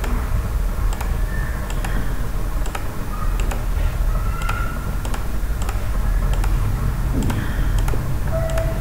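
Computer mouse clicks coming one after another at an irregular pace, over a steady low background hum.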